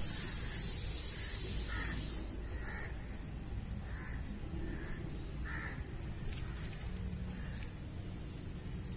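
Crows cawing repeatedly, about eight short calls spaced irregularly, over a steady low rumble. A hiss runs through the first two seconds.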